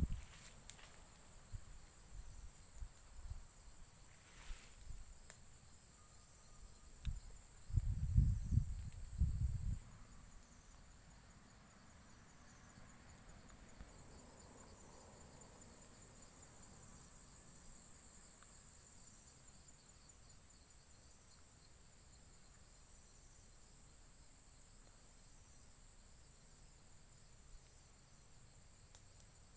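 Insects, such as crickets, trilling steadily at a high pitch. Low rumbling thumps come in the first ten seconds, the loudest between about eight and nine and a half seconds in.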